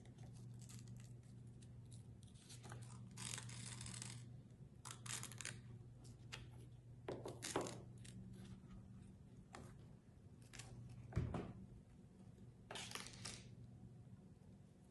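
Faint rustling and scraping of a cereal-box cardboard crown and ribbon as the ribbon is threaded through punched holes and pulled through, in scattered short bursts with a longer pull a few seconds in. A single low thump comes about eleven seconds in.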